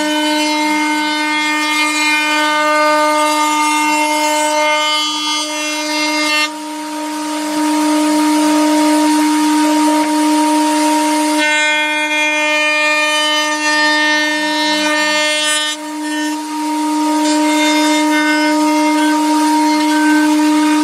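Table-mounted wood router running with a steady high whine while a bit cuts the edge of a wooden board. For a few seconds in the middle the cutting sound gives way as the board is lifted off the bit and the router spins free, then the cutting resumes.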